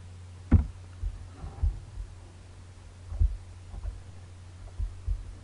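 A few scattered computer keyboard keystrokes and mouse clicks over a steady low electrical hum, the sharpest keystroke about half a second in.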